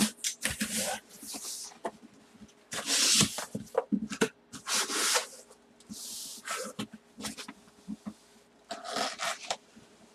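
Packaging being handled to open a box: bursts of rustling and tearing about once a second or two, with scattered light knocks.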